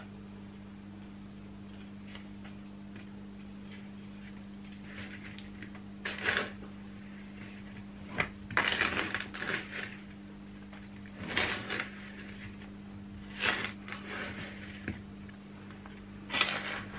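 Metal spoon scraping and stirring sugar-coated cherry plums in a plastic bowl, in five short bursts of gritty scraping and clatter, over a steady low hum.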